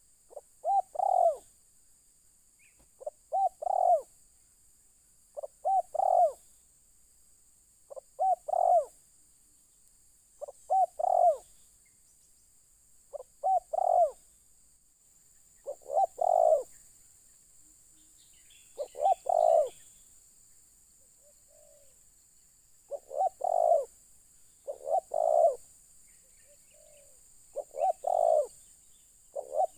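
Spotted dove cooing: a short phrase of two or three soft notes, repeated roughly every two and a half seconds.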